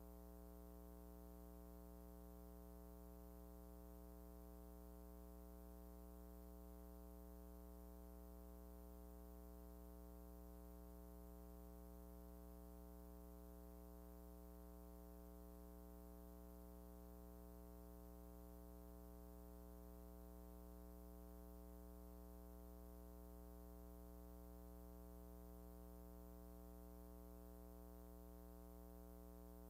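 Faint, steady electrical hum with a row of overtones, unchanging throughout: mains hum on an otherwise silent soundtrack.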